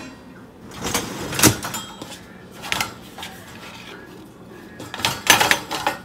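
Loaded dishwasher racks being slid and handled, with the steel dishes and utensils in them rattling and clinking in a few bursts: about a second in, near three seconds, and again near the end.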